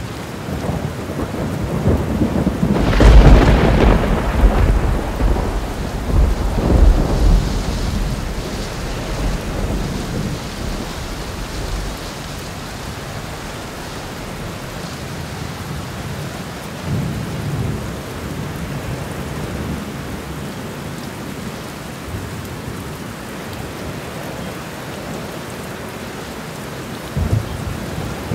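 Thunder over steady rain. A loud clap about three seconds in rolls on as a low rumble for several seconds, and fainter rumbles come twice later.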